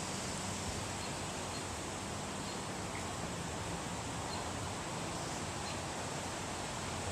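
Steady outdoor background hiss with no distinct event, and a few faint, short, high chirps partway through.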